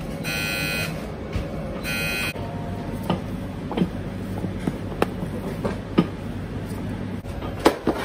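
Steady machine hum with two short, high electronic beeps in the first two seconds, followed by scattered light knocks and clatter.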